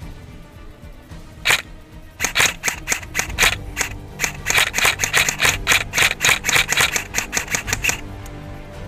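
EMG SBR AR-15 airsoft rifle firing: a single shot, then a rapid string of shots at about five a second for nearly six seconds.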